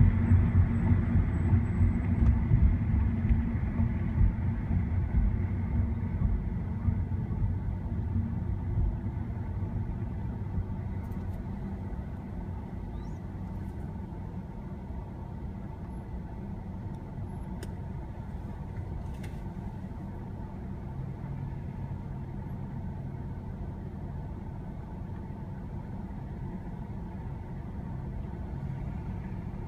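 Low rumble of tyre and engine noise inside a car's cabin, dying down over about ten seconds as the car slows to a stop, then a steady, quieter engine idle.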